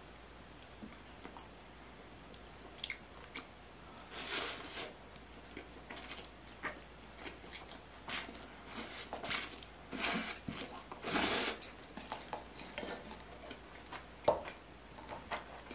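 A person eating spicy instant cup noodles with chopsticks, close to the microphone: a run of short slurps through the middle, with chewing between them. A sharp click comes near the end.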